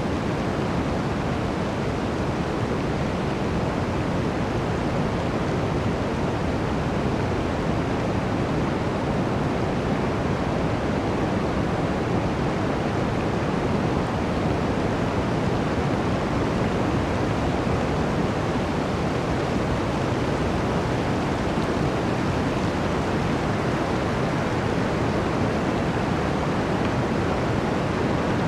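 Blizzard wind blowing through a forest: a steady, dense rush of noise, mostly low and deep, without gusts or breaks.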